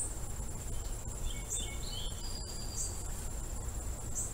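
Insects chirping outdoors: a steady high trill with a louder chirp about every second and a half, over a low background rumble. A few brief, faint whistled notes come between one and three seconds in.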